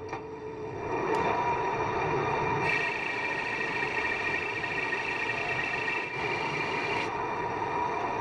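Metal lathe running with its large four-jaw chuck spinning while a turning tool cuts a cast-iron sleeve. A higher-pitched cutting sound comes in about three seconds in and drops away near the end.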